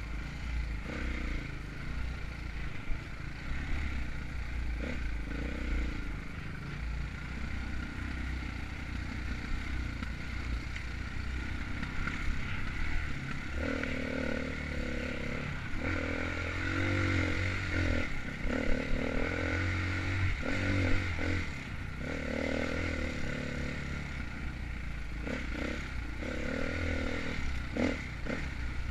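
KTM enduro dirt bike engine revving up and down as it is ridden through the trail, with knocks and clatter from the bike over rough ground.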